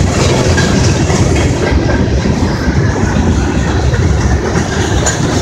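A string of empty CSX coal hopper cars rolling past: a loud, steady rumble of steel wheels on the rails.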